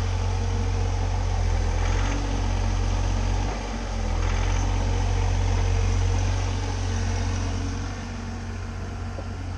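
Bobcat mini-excavator's diesel engine running steadily while digging, a constant low drone that eases off slightly near the end.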